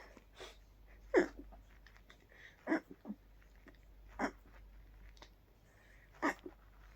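A series of four stifled sneezes, short muffled bursts about a second and a half apart, held back against a tickle caused by a cold.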